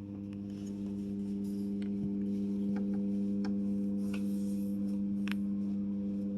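Electronic keyboard at full volume imitating a 50 Hz electrical transformer hum: a steady low buzz of several stacked, evenly spaced tones. It grows a little louder about a second in, with a few faint clicks over it.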